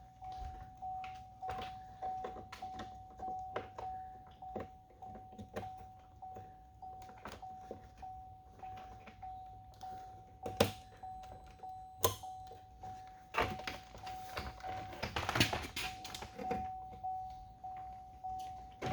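GMC Sierra's warning chime sounding over and over in rapid, evenly spaced tones, as it does with the ignition on and the driver's door open. Scattered clicks and knocks of parts being handled at the door, the loudest about ten and twelve seconds in.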